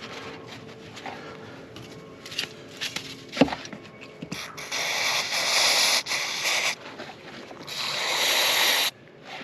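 Rubbing and scraping of a cloth on a removed EGR valve, with a sharp knock about three and a half seconds in. Then come two hissing blasts of aerosol cleaner being sprayed onto the valve, the first about two seconds long and the second about one second, each cut off sharply.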